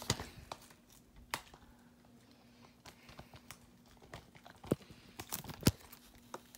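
Handling noise: a few sharp clicks and light crinkling, spread out with a quiet stretch in the middle, over a faint steady hum.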